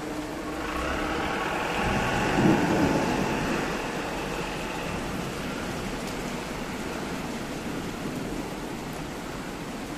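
Thunder rumbling: it swells about a second in, peaks around two and a half seconds, then fades away, over a steady hiss of rain.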